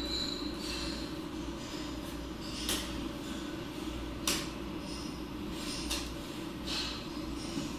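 Playing cards being handled and laid on a cloth mat on a tabletop: a few short, soft clicks and rustles spread over several seconds, over a steady low room hum.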